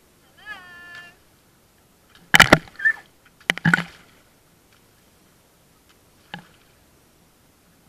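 Kayak paddling: two clusters of sharp clattering knocks and splashes about two and a half and three and a half seconds in, and one lighter knock later. Before them there is a short high-pitched call that bends in pitch.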